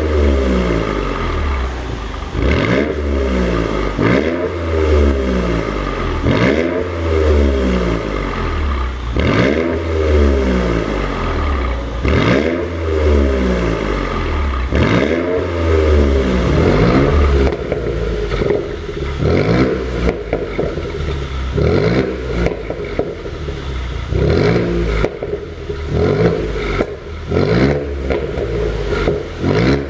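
Mercedes-Benz CLS 400's twin-turbo V6 being revved over and over in free-revving blips, each rise falling back with popping and crackling from the exhaust on the overrun, the result of a pop-and-crackle exhaust tune. In the first half the revs come about every two seconds; later the blips are shorter and choppier, with more crackle.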